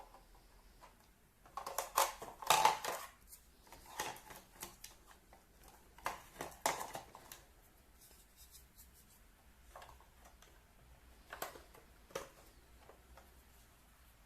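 Handling noise from an unboxing: several short clusters of clicks and rustles, the loudest a few seconds in, with quiet room tone between.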